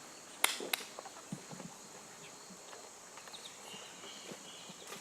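Quiet room tone with a steady hiss, broken by two sharp clicks about half a second in and then a few faint light knocks.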